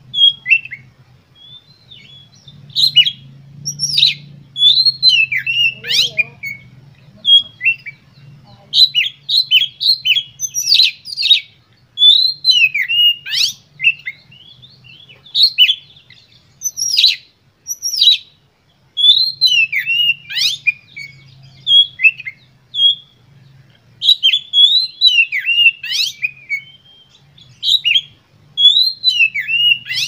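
Oriental magpie-robin (kacer) singing in full, excited song: a fast stream of sharp, sweeping whistled notes and chirps, delivered in phrases with brief pauses between them.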